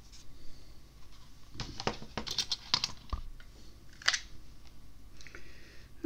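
Handling noise: a run of small clicks and scrapes as a small power-supply circuit board and its wires are picked up and turned over on a silicone work mat, with one sharper click about four seconds in.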